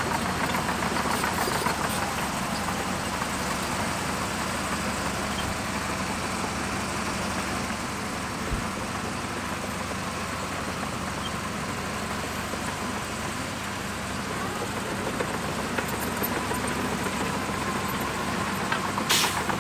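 Shantui DH17C2 bulldozer's diesel engine running steadily while it works. There is a brief sharp sound near the end.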